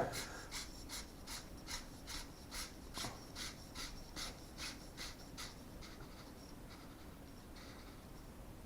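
Quick scratchy rubbing strokes, about three a second, from handling or turning parts on an airsoft M4, easing off and fading after about five seconds.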